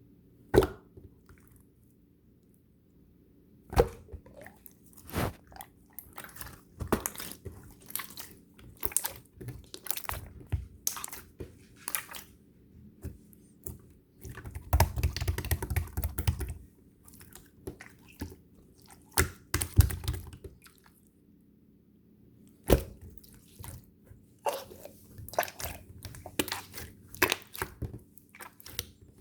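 Close-miked chewing: irregular crunchy bites and wet clicks, with a denser run of chewing about halfway through.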